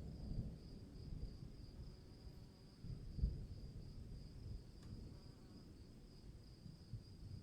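Crickets chirping in a continuous high trill, over a faint uneven low rumble with a soft thump about three seconds in.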